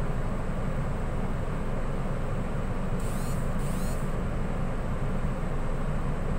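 Steady low rumble of the Mini Cooper's engine idling, heard from inside the cabin. About three seconds in, a brief high-pitched two-part chirp with falling pitch.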